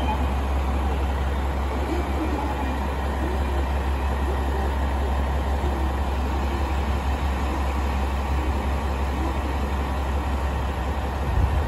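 A KiHa 40-series diesel railcar idling at a platform: a steady low diesel engine rumble. Just before the end the rumble turns rougher and louder.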